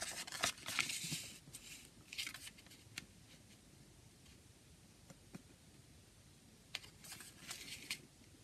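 Paper rustling as a folded CD lyrics booklet is flipped and unfolded by hand, in short bursts in the first second or two and again near the end, with a couple of light clicks in the quieter middle.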